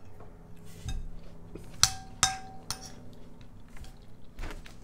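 A metal spoon clinking and scraping against a ceramic bowl. Two sharp clinks come about two seconds in, each ringing briefly, with lighter taps and scrapes around them.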